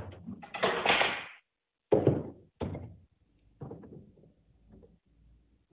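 A series of knocks and thuds with short scraping noises: workshop parts and materials being handled and set down on a hard surface, loudest in the first three seconds and fading to lighter taps.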